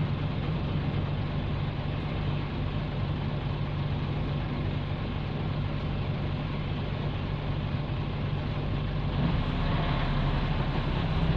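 Nissan Diesel U31L city bus's PE6H straight-six diesel engine running steadily under way, heard from inside the bus as a low, even drone. The tone shifts slightly about nine seconds in.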